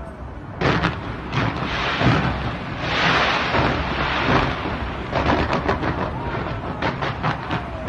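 Fireworks going off in quick succession: repeated sharp bangs over continuous crackling, with a dense crackling hiss in the middle stretch.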